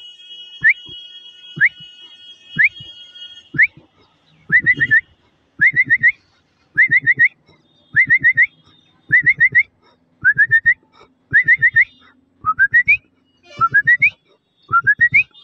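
A man imitating a Mahindra Scorpio's reversing alarm with his mouth, in whistled rising chirps. At first they come singly about once a second. They then run in quick bursts of four, repeated about every second, and near the end stretch into longer rising glides.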